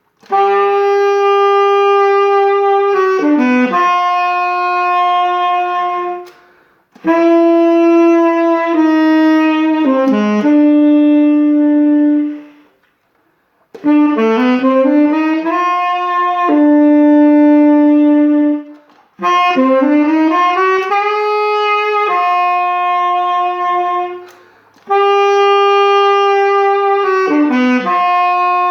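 A saxophone played solo in five phrases. Each phrase is a few long held notes joined by quick runs up and down, with short pauses between the phrases.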